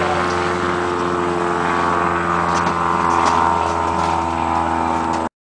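A motor running with a steady, even hum, with a few faint rustles and clicks over it; the sound cuts off abruptly near the end.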